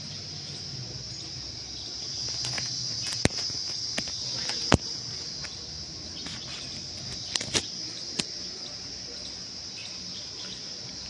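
Steady high-pitched insect chorus droning outdoors, broken by a handful of sharp clicks, most of them between about three and five seconds in and again around seven to eight seconds.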